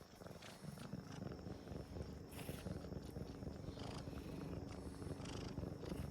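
Domestic cat purring steadily, a fast low flutter, close to the microphone.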